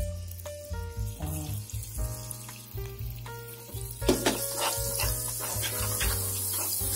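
Margarine sizzling as it melts into hot caramelized sugar in a frying pan, growing louder about four seconds in, with a wooden spatula stirring and scraping through it. Background music with a steady bass runs underneath.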